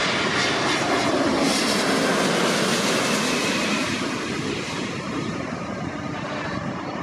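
Jet airliner passing low overhead on final approach to land: a loud rush of engine noise with a faint high whine, slowly fading after about four seconds in.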